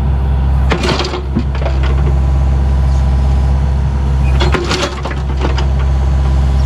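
An engine running steadily at idle with a low hum, with a few short knocks and clatters over it.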